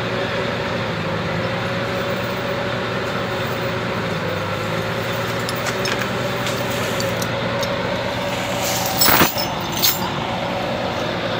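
Heavy diesel engine of a P&H crawler crane running steadily at idle. About nine seconds in come a sharp metallic clank and a second, smaller one: heavy chain knocking against the steel trailer deck.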